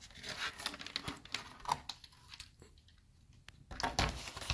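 Light scattered clicks and taps of hands handling a composite glider wing and its servo linkage parts, with a short rustle near the end.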